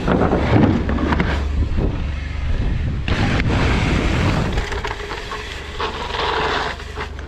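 Wind rumbling on a helmet-mounted action camera as a mountain bike rolls down a wooden plank roll-in, tyres clattering over the slats. About three seconds in, a sudden loud rush as the bike lands on an inflatable airbag, then tyres rolling on dirt.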